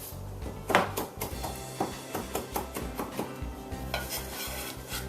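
Kitchen knife slicing chives on a cutting board: a run of irregular sharp knocks, the loudest about a second in, over background music.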